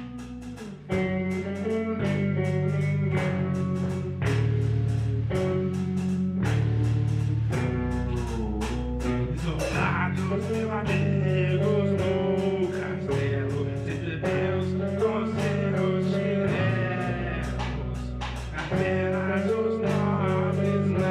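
Heavy metal song with electric guitars, bass and drum kit playing steady chords under regular drum hits. A lead line bends up and down in pitch from about eight seconds in.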